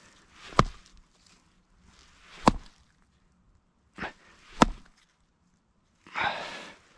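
Rock striking a rainbow trout's head to dispatch it: four sharp blows, the first two about two seconds apart and the last two close together.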